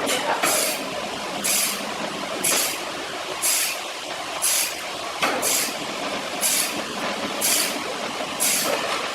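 Saw cutting wood: a steady mechanical noise with a short hissing stroke about once a second.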